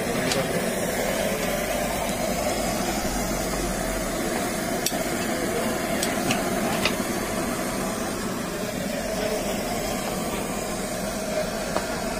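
Steady background noise at a street food stall, with a few faint clicks of a knife cutting through a toasted sandwich about five to seven seconds in.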